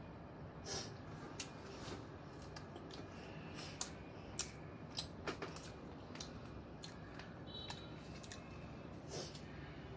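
A child chewing food, with scattered wet mouth clicks and smacks every second or so.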